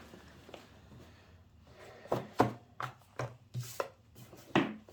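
Camera packaging being handled during an unboxing: after a quiet start, a run of about ten short, sharp knocks and taps from boxes being set down and moved, beginning about two seconds in.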